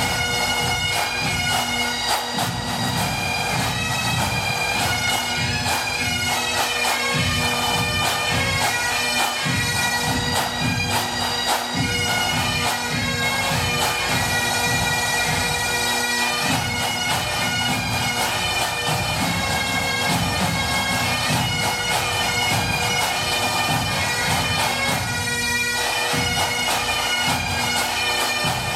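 Scottish pipe band playing a tune: Highland bagpipes over their steady drones, with drum beats underneath.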